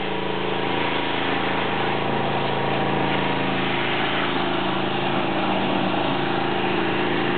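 Engine running steadily, with a dense, even hiss over its drone.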